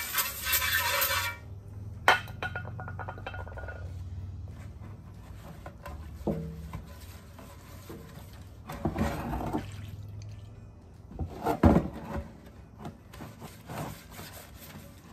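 Aerosol cleaner hissing as it is sprayed into an engine oil pan, stopping about a second in. Then a hand scrubs and scrapes around inside the pan, with rubbing and scraping noises and a loud knock about twelve seconds in.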